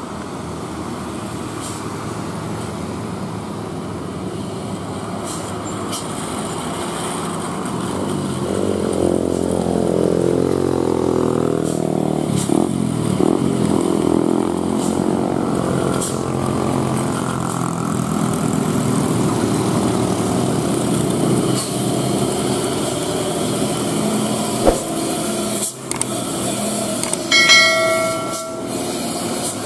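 Heavy diesel trucks and other traffic labouring up a steep mountain road, engine pitch rising and falling as they pull. A short horn blast near the end.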